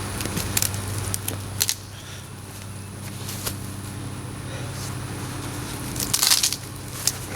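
An engine idling steadily, with scattered sharp cracks and crunches over it, the loudest burst near the end.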